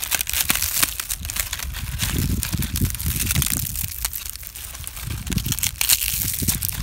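Dry brown leaves still on the branch being crumpled and crushed in the hand, a dense crackling rustle, with a low rumble from about two seconds in.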